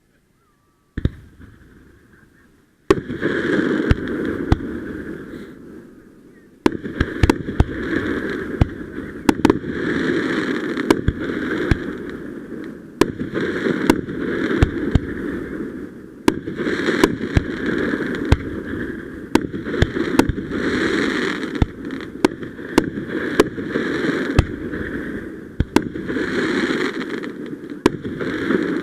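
Fireworks going off: a single pop about a second in, then from about three seconds in a continuous crackling hiss with many sharp bangs, swelling and fading every second or two.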